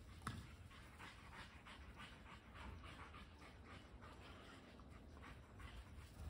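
A dog panting quickly and faintly, about three breaths a second, over a low wind rumble, with a short knock about a third of a second in.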